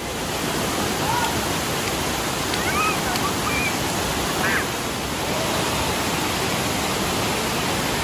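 Tomara Waterfall's many streams falling over a broad mossy rock face: a steady, even rush of water.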